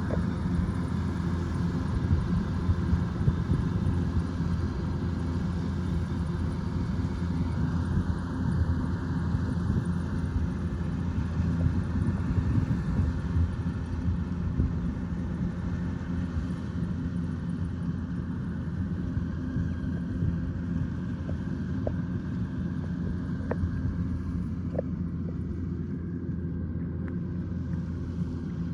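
Kubota DC105X combine harvester running steadily, its engine and threshing machinery droning at an even pitch, with a few faint ticks in the second half.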